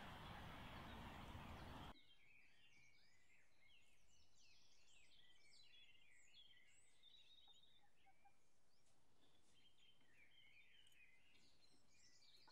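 Faint chorus of small songbirds chirping and twittering, many quick calls overlapping, after a steady hiss that cuts off abruptly about two seconds in.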